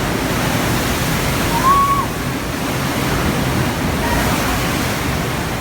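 Typhoon-driven surf surging and churning in a continuous steady roar, with a brief high tone about two seconds in.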